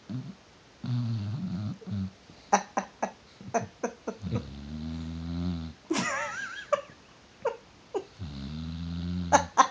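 Sleeping dog snoring: three long low snores about every three and a half seconds, with short clicking snorts between them and a brief high wavering whistle about six seconds in.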